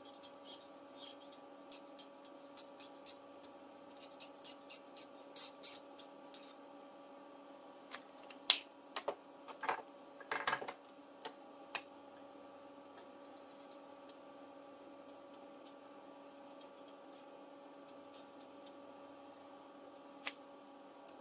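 Marker pen scratching and tapping on a small paper card in quick short strokes, then a few louder clicks and knocks of things being handled, over a faint steady hum.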